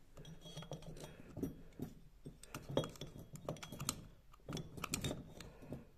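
Light, irregular clicks and clinks of a steel vernier caliper knocking against a Zetor piston and its piston pin while the pin's diameter is measured.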